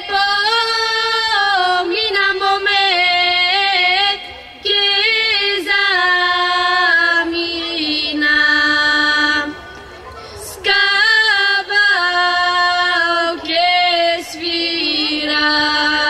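Two women's voices singing a Bulgarian Pirin folk song in long phrases with short breaks between them. Several phrases end on a long held note.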